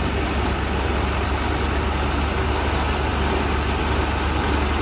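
Mahindra Arjun Novo 605 4WD tractor engine running steadily, driving a paddy thresher through its PTO shaft while paddy is fed in; the tractor and the spinning threshing drum make one steady drone with a deep hum.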